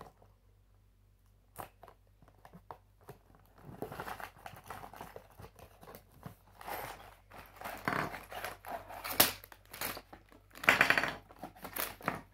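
A cardboard toy box being torn open by hand: a few light clicks, then repeated ripping and scraping of the card from about four seconds in, loudest in two bursts near the end as plastic bags of Lego pieces crinkle and spill onto the table.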